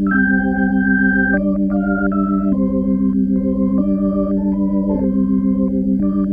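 Background music of sustained, organ-like chords, with a slow melody of held notes changing about once a second.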